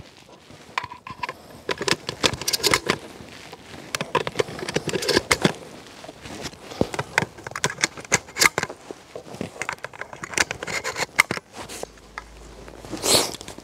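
Irregular clicks and metallic handling noises of a pump-action shotgun being loaded with shells, with one louder sound near the end.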